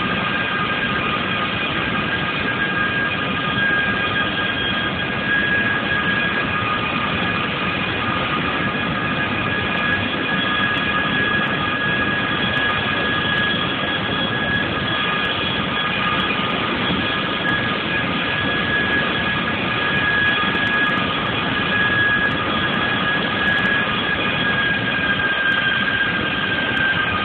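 Boeing 737 airliner's jet engines running at taxi power as it rolls past, a steady whine of several high tones over a broad rush.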